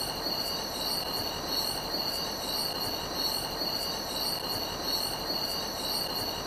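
Chorus of night insects shrilling steadily at several high pitches at once, pulsing slightly, over a steady hiss of jungle night ambience.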